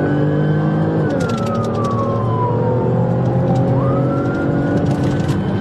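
Police car siren on a slow wail, falling in pitch from about a second in, then sweeping quickly back up near the middle and holding high, over a car engine running steadily.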